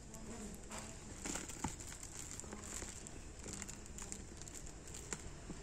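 Faint crinkling of a plastic sack liner with a few sharp clicks, the loudest about one and a half seconds in.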